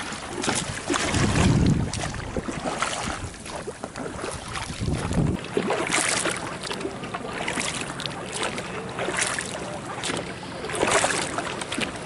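Oars splashing as a small inflatable boat is rowed, with water running off the blade between strokes and a splash every couple of seconds in the second half. Wind rumbles on the microphone for the first few seconds.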